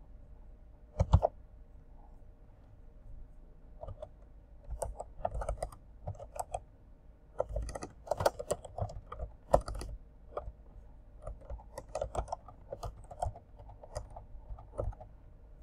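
Typing on a computer keyboard: a run of quick, irregular keystrokes as a short phrase is typed into a spreadsheet cell, after a single louder click about a second in.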